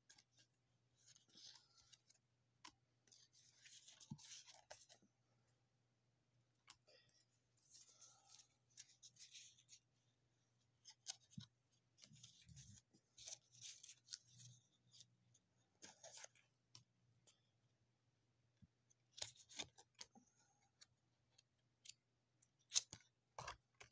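Faint rustling and swishing of a stack of paper game cards being leafed through by hand, one card at a time, with scattered sharp clicks and a louder one near the end.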